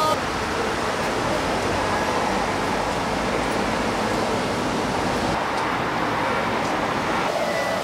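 Steady street noise, an even rush like passing traffic with no distinct events; the highest hiss thins out about five seconds in.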